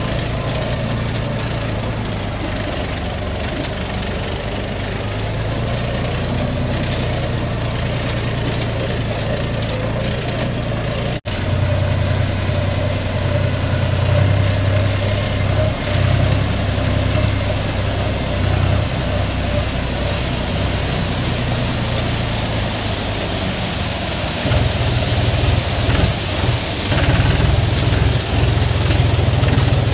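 John Deere tractor's diesel engine running steadily while the tractor drives over a rough rocky road, heard close from the driver's seat. It cuts out for an instant about a third of the way through, and the engine note grows heavier near the end.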